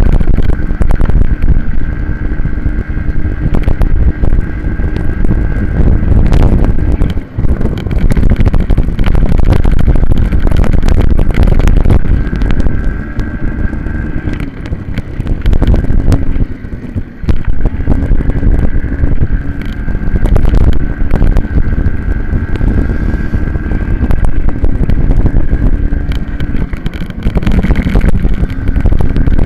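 Racing minibike engine heard from on board, held at high revs with a steady tone and easing off twice briefly, over heavy wind buffeting on the microphone.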